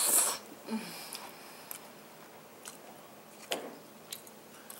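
Mouth eating sounds: a loud slurp of saucy shredded-chicken enchilada at the start, then soft wet chewing with a few sharp mouth clicks.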